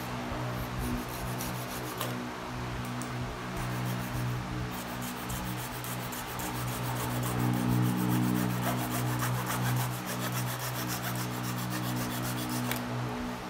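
A hand-held hacksaw blade sawing back and forth through the plastic extension pieces of a body-jet concealed box, cutting them level with the orange plugs.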